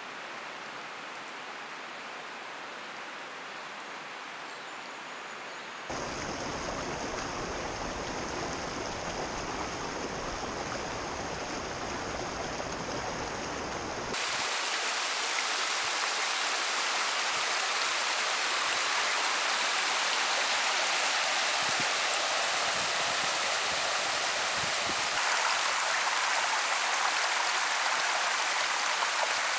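Running stream water, a steady rush. It changes abruptly twice, at about six and fourteen seconds in, growing louder each time, as the sound of one stretch of water gives way to another.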